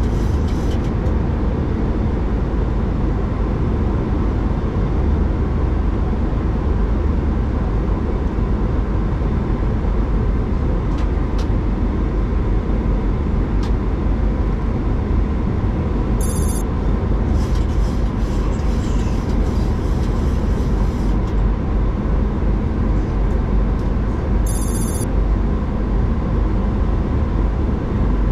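Steady low cockpit noise of a Boeing 737-800 on approach: air rushing past the flight deck with the engines running underneath. Two brief high-pitched blips cut through it in the second half.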